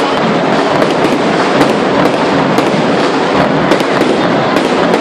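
Fireworks display going off in a dense, continuous barrage: crackling and popping, with sharp cracks several times a second and no let-up.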